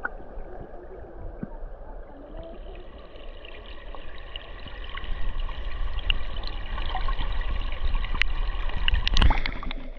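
Water running in a stream, growing steadily louder, with scattered small clicks over it.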